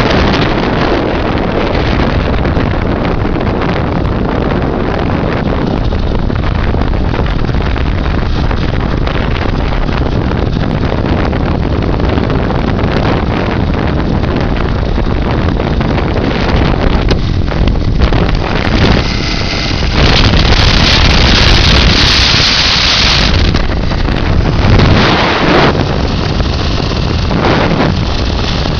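Heavy wind buffeting on the microphone of a moving motorcycle, with the bike's engine running steadily at road speed underneath. The wind surges louder about two-thirds of the way through, and again briefly a little later.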